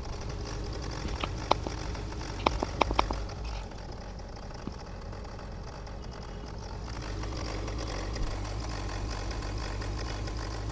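Range Rover engine idling steadily, its AC compressor freshly fitted with a new bearing and running smoothly. A few sharp clicks come between about one and three seconds in.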